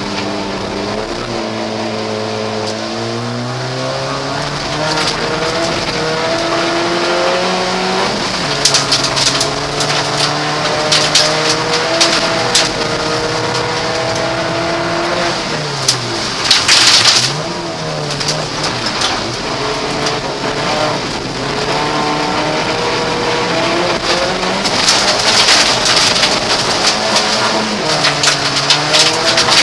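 1600 cc class rallycross car heard from inside the cabin, its engine revving up through the gears and falling back at each shift and corner. Bursts of gravel and stones clatter against the underside on the loose sections, loudest a little past halfway.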